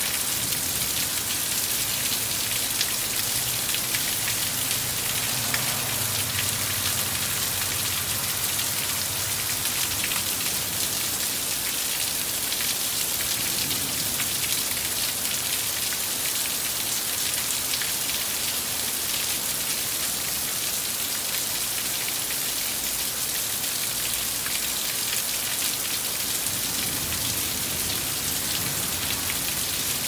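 Heavy rain falling steadily, a dense even hiss that holds at the same level throughout.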